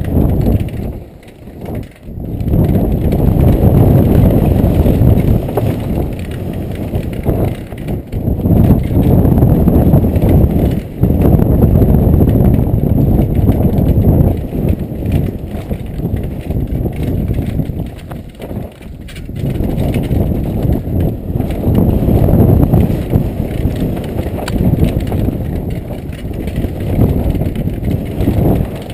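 Downhill mountain bike running fast over a rough dirt track, heard from a helmet-mounted camera: a loud, uneven rumble of wind buffeting and tyres, chain and frame rattling over bumps. It drops away briefly about a second in and again about two-thirds of the way through.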